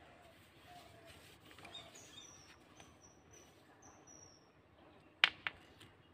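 Quiet outdoor background with faint high bird chirps, then two sharp clicks in quick succession about five seconds in, much louder than anything else.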